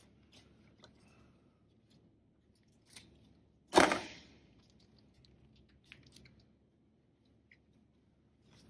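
A packet of CV joint grease being torn open: light rustles and clicks of handling, with one sharp crackling rip about four seconds in.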